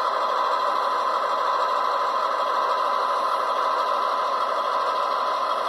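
Tsunami2 sound decoder in an Athearn CF7 model locomotive playing a diesel engine running steadily through the model's small speaker, thin and without deep bass.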